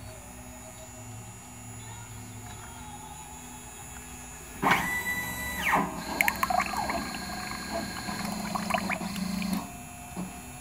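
Paint tinting machine (automated colorant dispenser) running for about five seconds from roughly halfway in, a steady whine with rapid clicks, as it squirts colorants into a quart can of paint; it stops abruptly near the end. Before it starts there is only a low steady hum.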